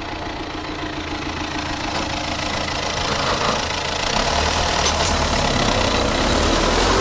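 Tractor diesel engine running and building steadily in loudness, with a deeper rumble coming in about four seconds in.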